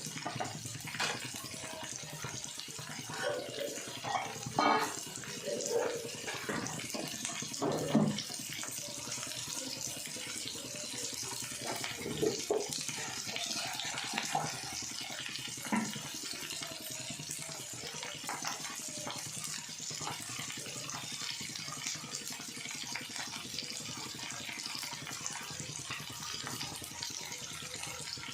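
Kitchen tap running steadily into a sink, with a few short knocks and clinks in the first half, the loudest about eight seconds in.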